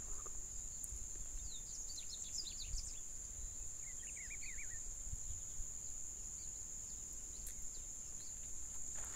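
Outdoor field ambience: birds chirping in two short runs of quick notes, about a second and a half in and again around four seconds in, over a steady high-pitched insect drone.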